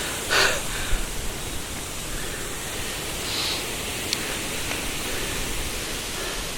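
Steady rushing of a river's flowing water, with a brief soft noise about half a second in.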